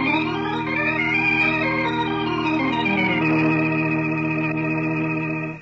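Organ music playing sustained chords that change a couple of times, then cutting off suddenly near the end. It is the closing music cue that ends the radio drama's story.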